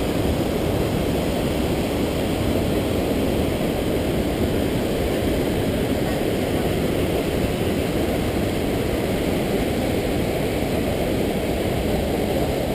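Waterfall: a steady, unbroken rush of falling water, deep and loud.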